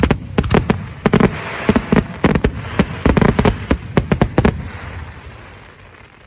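Fireworks going off in a rapid, irregular string of loud bangs, several a second. They stop about four and a half seconds in and leave a fading rumble.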